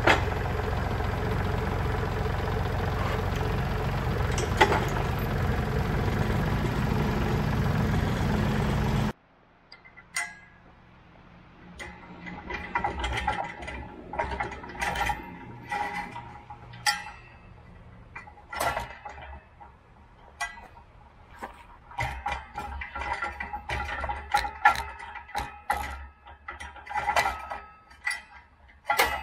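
Kubota L3901 tractor's three-cylinder diesel engine running steadily for about nine seconds, then it breaks off abruptly. After that come scattered metal clinks and knocks as the steel pallet forks are handled and adjusted on the loader's fork frame.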